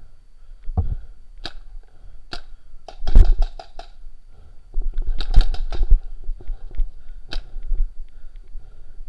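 Paintball markers firing: single sharp pops about a second apart, then two rapid strings of shots, the first about three seconds in and a longer one around five to six seconds in.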